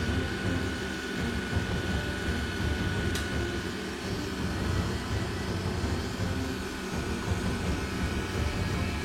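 Vacuum cleaner running steadily: a continuous low hum and rush of air with a thin high whine that fades out about halfway through.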